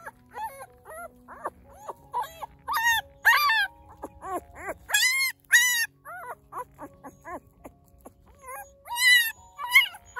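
Newborn puppy crying in a quick series of short, high-pitched squeals while it is carried in its mother's mouth, loudest about halfway through and again near the end.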